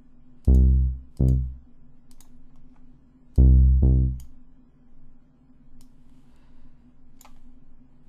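Halion 6 synth bass patch sounding short, deep notes in two pairs, about half a second in and again after about three seconds, as a note is drawn in and auditioned. Faint mouse clicks sound between the notes.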